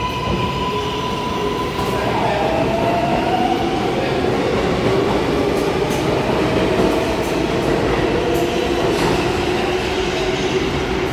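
R142A subway train pulling out of the station with a steady rumble. Its electric traction motors whine in tones that glide and shift in pitch as it gathers speed.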